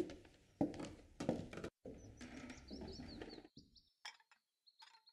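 Footsteps on a wooden floor, a few quiet knocks about half a second apart, then a faint scuffing. Faint birds chirping come in later on.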